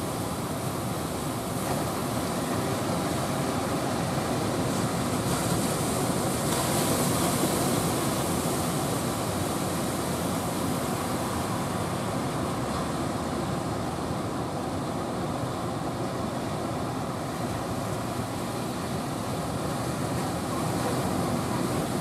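Heavy surf breaking and rushing onto the shore in a continuous roar, growing louder and hissier for a few seconds about a third of the way in.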